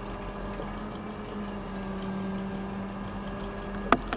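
Crane's engine running at a steady speed, a constant mechanical hum, with one sharp click near the end.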